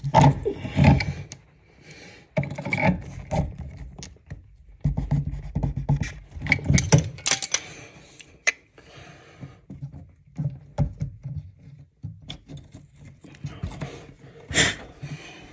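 Irregular clinks, scrapes and knocks of wrenches and hands working a new 1/2-inch chrome compression angle stop onto the supply pipe, in short bursts with brief pauses between.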